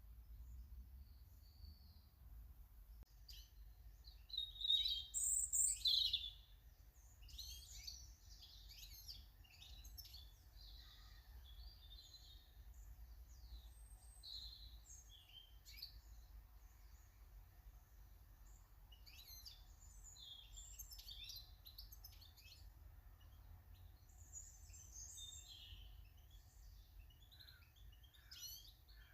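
Small garden birds chirping and calling in quick, short bursts, the loudest cluster about four to six seconds in.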